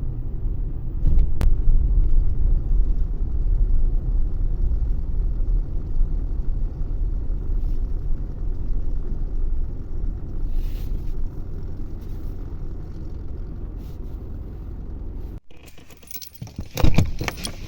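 A steady low rumble that cuts off suddenly near the end, followed by a few sharp clicks and rattles.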